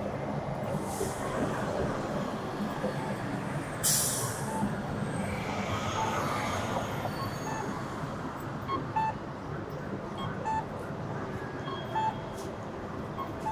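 Street traffic with a heavy vehicle passing, and a short sharp hiss about four seconds in. Faint short beeps repeat about every second and a half in the second half.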